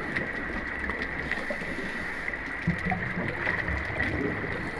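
Steady underwater ambience: a noisy watery bed with a faint high steady whine and scattered small clicks and gurgles.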